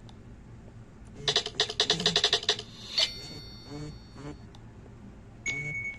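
Nokia 6288 ringtone playing through the phone's small speaker: a fast run of bright notes, about eight a second, ending in a single chime that rings on and fades. Near the end comes a short, steady high beep.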